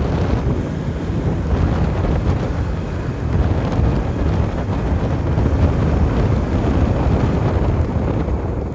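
Wind buffeting the microphone of a moving motorcycle: a steady, dense rumble of wind and road noise with no clear engine note.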